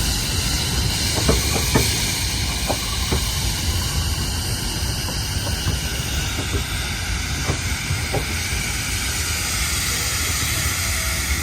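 Steam locomotive hissing steam steadily over a low rumble, with a few sharp clanks and knocks.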